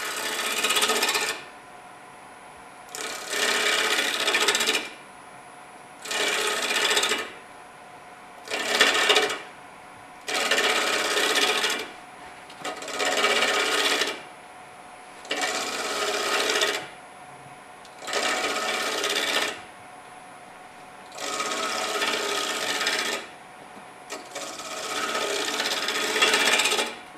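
Long-handled bowl gouge cutting a large wooden bowl blank spinning on a wood lathe. The cut is made in about ten separate passes, each lasting one to two seconds, with pauses of about a second between them.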